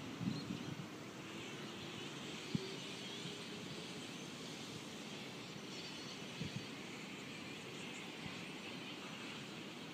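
Distant electric suburban train pulling away, heard as a faint hum rising slowly in pitch over quiet station ambience, with a sharp click about two and a half seconds in.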